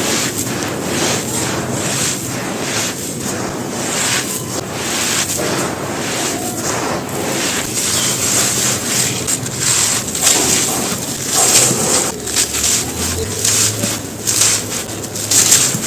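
Brittle material being crumbled by hand: a dense, continuous run of crisp crunches and cracks.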